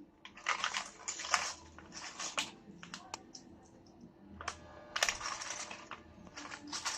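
Rummaging through a stock of spare phone charging ports: bursts of rustling and crinkling with scattered small clicks.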